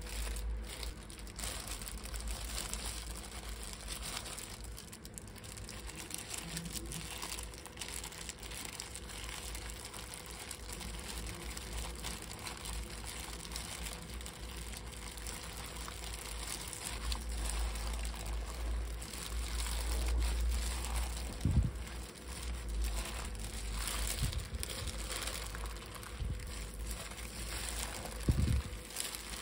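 Disposable plastic gloves crinkling as hands pull apart cooked salmon fillets and mix them through a chopped-vegetable mash in a stainless steel pot, with a couple of dull low thumps late on.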